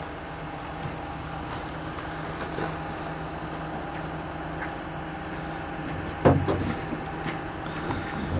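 Dump truck engine idling steadily, with a single loud knock about six seconds in.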